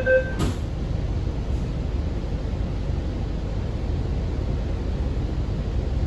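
Inside an MTR C-train car: the last door-closing warning beeps cut off and the doors shut with a single thud about half a second in, followed by the train's steady low rumble.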